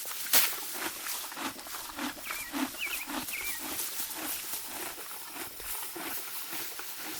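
Morgan horse grazing: crisp tearing and crunching of grass as it bites, over steady chewing at about two strokes a second, with one sharp rip a third of a second in.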